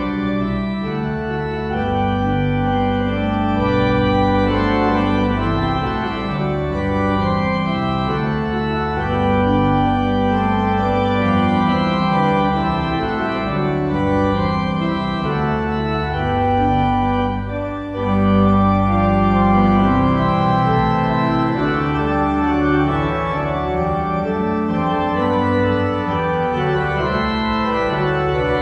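Organ music playing sustained chords that change every second or so, with a brief dip in loudness about two-thirds of the way through.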